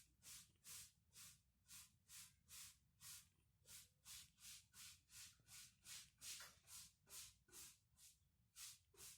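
A cat snoring: faint, breathy snores in a quick, even rhythm, about two and a half a second.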